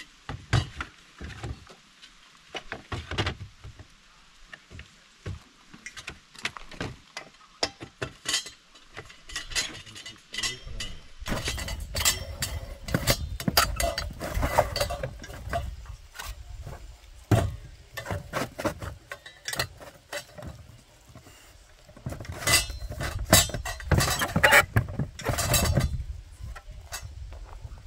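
Irregular clinks and knocks of hard objects being handled. They are sparse at first and grow busier and louder about eleven seconds in.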